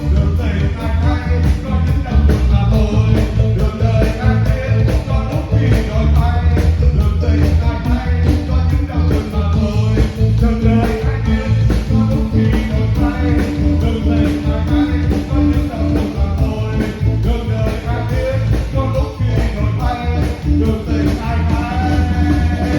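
Upbeat dance music with a steady, quick beat and heavy bass, a melody line running over it.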